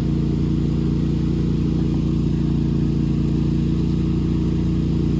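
Lawn mower engine running steadily, its even drone unchanged throughout.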